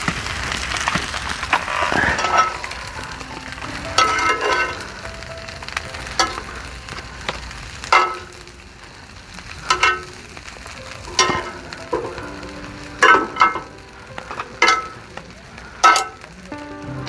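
Lamb ribs sizzling on a grill pan, louder in the first few seconds. A metal utensil clinks against the pan about ten times as the meat is turned and moved.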